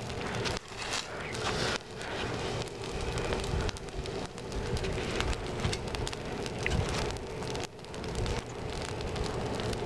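Open fire burning, with a dense crackle of small pops over a steady hiss.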